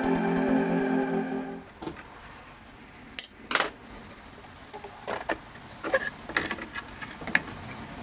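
Background music for the first couple of seconds, then a run of small metallic clicks and clinks from an Allen key and screws being worked on a metal key machine's casing.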